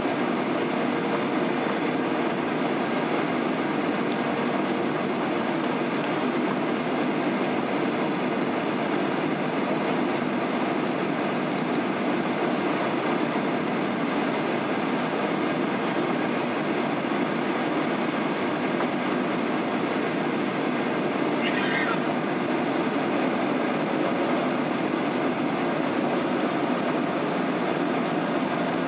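Steady cabin noise inside a Boeing 737-800 airliner during descent: the even rumble of its CFM56 turbofan engines and the rush of air over the fuselage, with faint steady tones on top.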